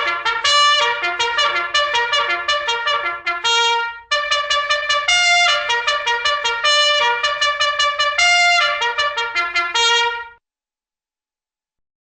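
Fast cartoon music cue played on a trumpet: a quick run of short, staccato notes. It has a brief break about four seconds in and cuts off about ten seconds in.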